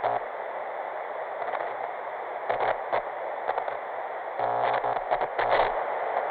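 Television-static sound effect: a steady hiss with a low electrical buzz and stuttering, glitchy crackles that come and go, thickest in the last couple of seconds.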